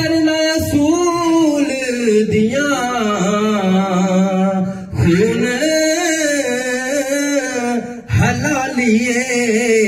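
A man singing a naat unaccompanied, drawing out long held notes with wavering ornaments in three long phrases, with short breaks about five and eight seconds in.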